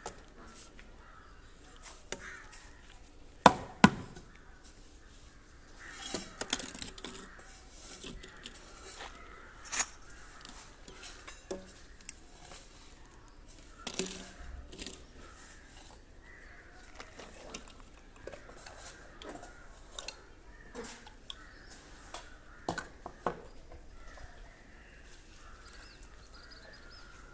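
White PVC pipes and fittings clicking and knocking as they are handled and pushed together on a concrete floor, with two sharp knocks close together about three and a half seconds in and scattered lighter taps after.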